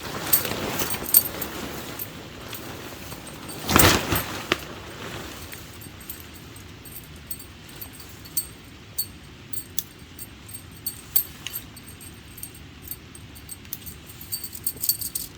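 Camping gear being handled by hand: rustling with light metallic clinking, a loud rustle or knock just before four seconds in, then scattered sharp ticks.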